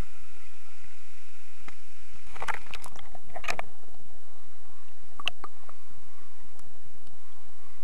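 Muffled underwater sound through a submerged camera's waterproof housing: a steady faint hiss with scattered clicks and knocks, a cluster of them about two and a half to three and a half seconds in and a few more around five seconds.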